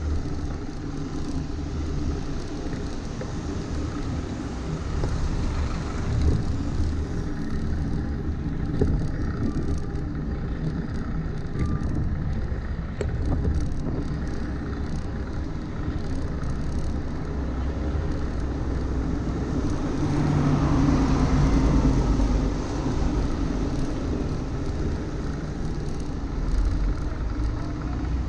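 Riding noise from a bicycle on a wet city street: wind buffeting the microphone and tyres hissing on damp asphalt, over a steady rumble of traffic. The sound swells louder for a few seconds about two-thirds of the way through.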